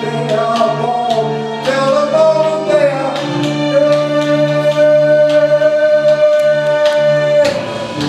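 A voice singing over electronic backing music with a steady beat and a low drone. About halfway through it holds one long note for several seconds, which breaks off shortly before the end.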